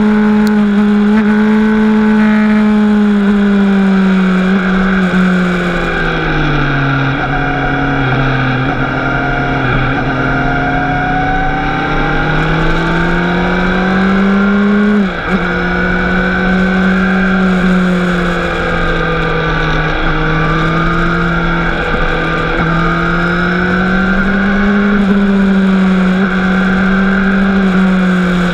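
Motorcycle engine heard from on board while riding, holding a steady note under load. Near the middle the pitch sags and slowly climbs back as the throttle is eased and reopened, then it drops sharply for a moment about halfway through, like a gearshift, before holding steady again. Wind rush sits underneath.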